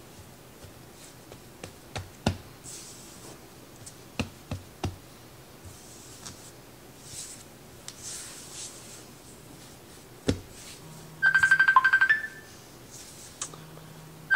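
Hands patting and pressing soft biscuit dough on a floured silicone mat, with a few soft thumps and rustling. About eleven seconds in, a phone ringtone cuts in, a loud rapid electronic trill lasting about a second that steps up in pitch at its end, and it starts again at the very end.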